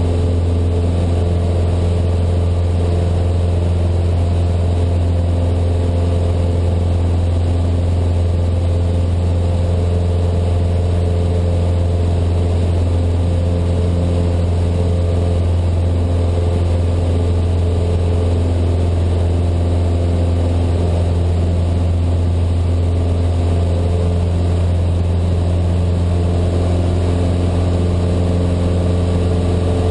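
Single-engine floatplane's piston engine and propeller droning steadily at climb power just after takeoff, heard from inside the cockpit: a loud, even, low hum with no change in pitch.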